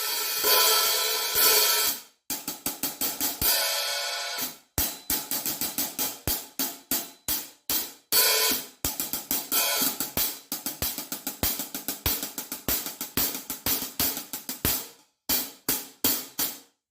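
A pair of 14-inch Omete Mercury hi-hats played with a stick. It opens with a few ringing open-hat washes, then a long run of quick, tight closed strokes with occasional open swells, and ends on several sharp closed chicks.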